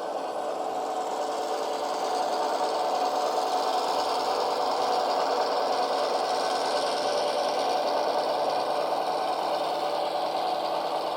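Sound-equipped HO scale Walthers GP7 model locomotive playing its diesel engine sound through its onboard speaker. The sound runs steadily, swelling over the first couple of seconds, with a mechanical whir under it.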